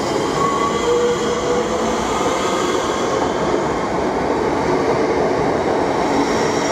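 Southeastern electric multiple unit moving along the platform: a steady rumble of wheels on rail with thin whining tones over it from the traction motors and wheels.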